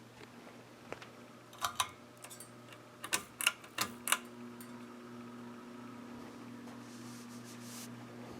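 Ceiling fan's pull-chain switch clicking several times, followed about four seconds in by the motor of the 1992 Bahama 52-inch hugger fan settling into a new steady hum as it starts up at another speed.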